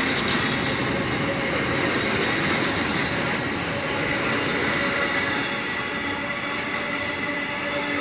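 Container freight train's wagons rolling past at close range: a steady, even rumble of steel wheels on rail with a faint steady whine over it.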